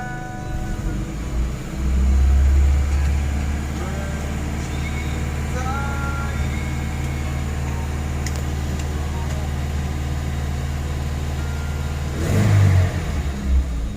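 Nissan Terrano's engine running steadily, swelling briefly about two seconds in, with a louder rush of noise near the end.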